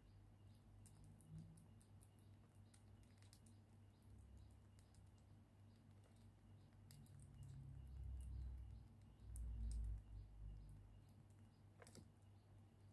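Near silence: room tone with a steady low hum and faint, scattered small clicks. A low rumble swells about eight to ten seconds in.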